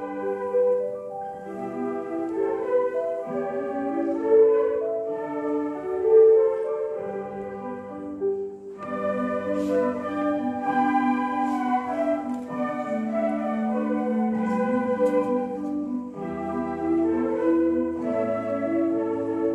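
Elementary school ensemble playing a slow classical-style piece: phrases of held notes in several parts over a lower line, with short breaths between phrases about a third and four-fifths of the way through.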